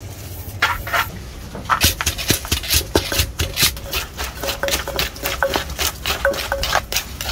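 Wooden pestle pounding green papaya salad in a large clay mortar: quick repeated knocks, about three a second, as the salad is bruised and mixed.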